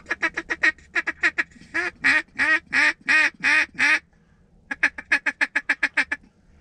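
Mallard duck call blown close by in a calling sequence: a string of quick short quacks, then about six long drawn-out quacks, then a fast run of short clucking notes that stops near the end.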